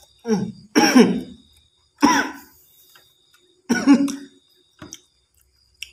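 A man with a mouthful of noodles coughing and clearing his throat in four short bursts over about four seconds.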